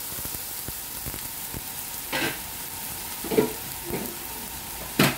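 Broth of minced pork and mushrooms bubbling and sizzling hard in a hot nonstick pan, hot water having just gone in. Steady hiss and crackle with a few louder pops, the sharpest near the end.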